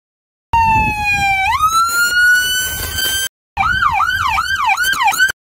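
Police truck's electronic siren demonstrated in short bursts: first a wail tone that dips slightly, then climbs and holds high before being cut off after about three seconds. After a brief gap comes a fast yelp, sweeping up and down about three times a second, cut off near the end.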